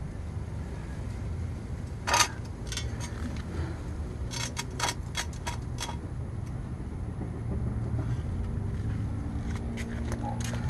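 Scattered sharp clicks and taps from hand-tool work on a tie rod being turned to adjust the wheel's toe, over a steady low hum. The loudest click comes about two seconds in, a quick cluster follows in the middle, and a few more come near the end.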